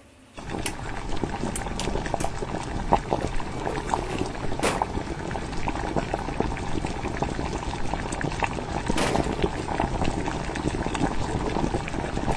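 Pork and onions in soy, mirin and ginger sauce simmering in a frying pan, bubbling and crackling steadily, with occasional sharp clicks of chopsticks against the pan. The bubbling starts abruptly about half a second in.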